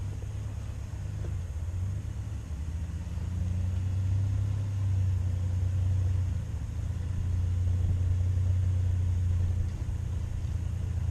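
Off-road 4x4's engine running with a low, steady rumble while crawling over rocks, swelling louder twice as throttle is applied, about three seconds in and again about seven seconds in.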